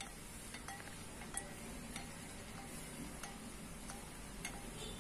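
Metal spoon stirring a drink in a glass, clinking lightly against the side a few times at irregular intervals, each clink ringing briefly.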